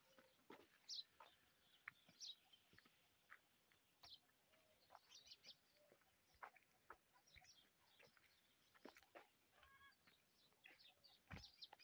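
Faint rural outdoor sounds: scattered short chirps and clucks of distant birds and chickens, with light footsteps on a dirt path.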